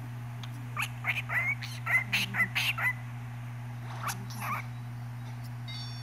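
Cockatiel chirping: a quick run of short, pitch-sliding chirps and whistles from about one to three seconds in, then two more a little later.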